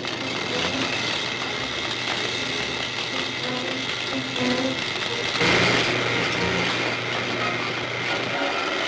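Film sound effect of a high-voltage electrical discharge: a loud, sustained crackling buzz over a steady low hum. A heavy charge is being driven into a pair of metal plates until they collapse. It grows louder about five and a half seconds in, and the hum cuts off near the end.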